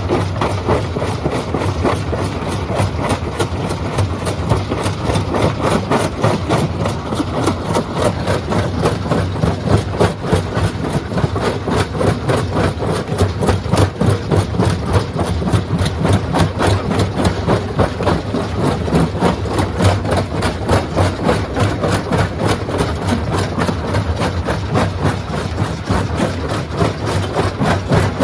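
Stone crusher running steadily: a heavy machine drone under a continuous dense clatter of rock being knocked and broken.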